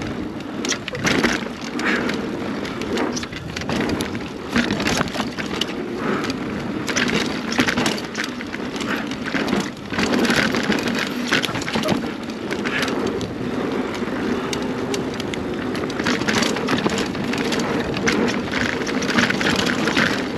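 2021 Scott Spark 970 full-suspension mountain bike ridden down a dirt trail, heard from a handlebar-mounted camera: a continuous rumble and rush of tyres on dirt, with frequent clicks, knocks and rattles from the bike over roots and bumps.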